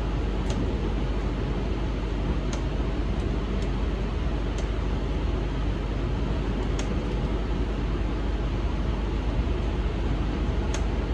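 Steady running rumble and hiss of a moving electric train heard from inside the carriage, with a few short sharp ticks scattered through it.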